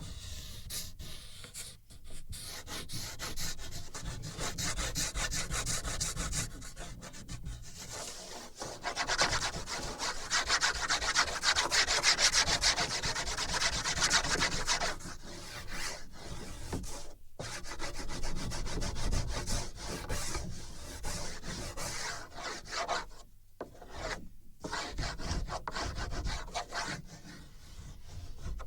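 Drawing strokes scraping across a wooden board, picked up by contact sensors fixed to the board: a dense, rasping scratch of many quick strokes, loudest about a third of the way in, with a few short breaks later on. The strength of the sound follows the pressure and movement of each stroke.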